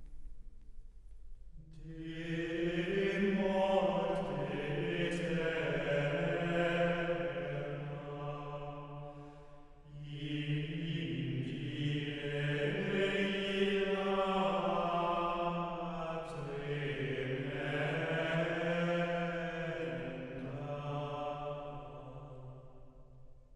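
Slow chanted singing in long held phrases with slowly shifting pitch, one phrase giving way to the next about ten seconds in and again about sixteen seconds in, fading near the end.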